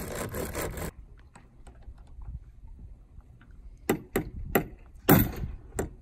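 Hacksaw cutting through a metal chain or lock with quick back-and-forth strokes, stopping about a second in; then about five sharp metallic knocks in quick succession near the end.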